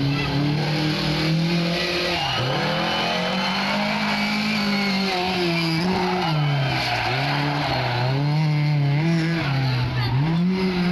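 Rally car engine revving hard, its pitch rising and dropping repeatedly as the driver lifts off and gets back on the throttle through a run of corners, with tyres squealing.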